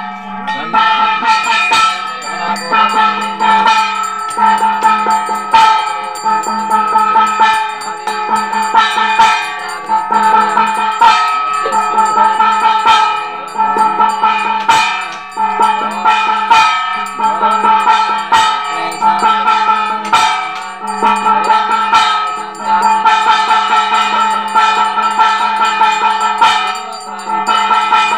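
Devotional ritual music: steady ringing metallic tones over an uneven run of drum strokes, with no pause.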